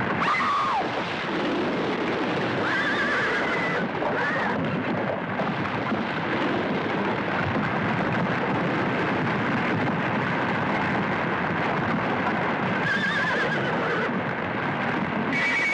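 Horses whinnying, with several shrill wavering calls about three seconds in and again near the end, over a continuous noisy rumble.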